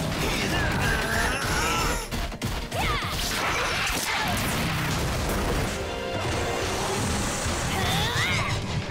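Cartoon fight sound effects: crashes and impacts over background music, with a few sliding, swooping effects.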